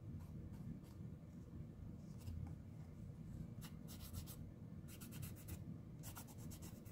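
Fingertip rubbing back and forth across a small watercolor-paper card, faint scratchy strokes coming in quick runs, mostly in the second half, over soft handling noise.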